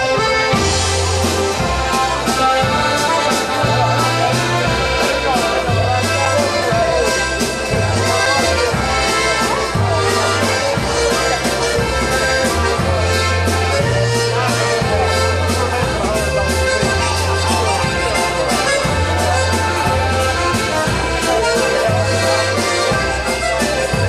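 Live band playing a waltz, led by a button box accordion, over a bass line that steps between notes about once a second.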